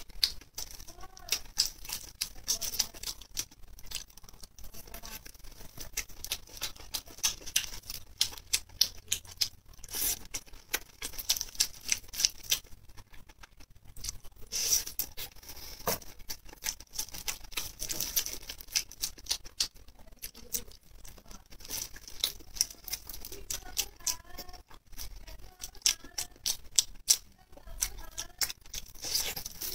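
Chewing and wet lip smacking: a dense, irregular run of quick clicks and smacks as someone eats skewered food coated in sticky chili sauce.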